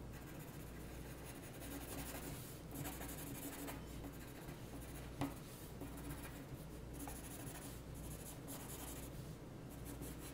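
Graphite pencil scratching on drawing paper in runs of short, quick strokes, with a light tap about five seconds in.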